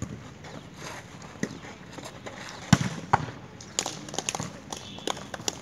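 Sharp slaps of a volleyball being struck during a rally, the loudest a little under three seconds in and another just after. A string of smaller sharp knocks follows near the end.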